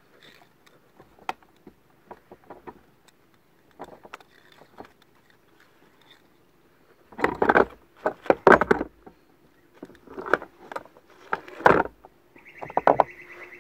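Handling noise of fishing line being pulled in and wound onto a plastic handline spool: light ticks and clicks at first, then several louder rustling bursts in the second half. A steady high tone begins near the end.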